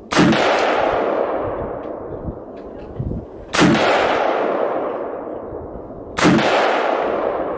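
Three AR-15 rifle shots in .223, about three seconds apart, each sharp crack followed by a long echo that fades away.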